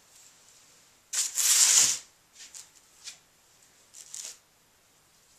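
Hands rubbing and pressing soft clay lining a ceramic bowl: one loud swipe lasting most of a second about a second in, then a few short, fainter rubs.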